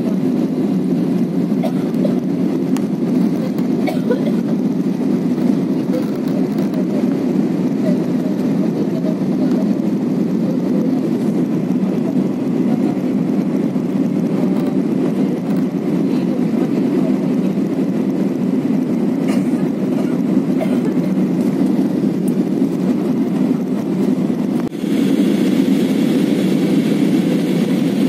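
Steady cabin noise of an Airbus A320-family jet airliner in cruise, the engine and airflow drone heard from a window seat. It dips briefly about three-quarters of the way through and comes back with a little more hiss.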